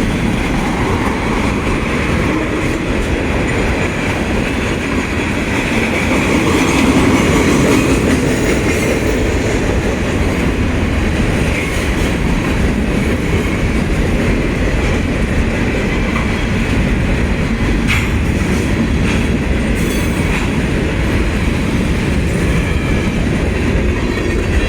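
Union Pacific freight train's cars rolling past close by: a loud, steady rumble and rattle of steel wheels on the rails.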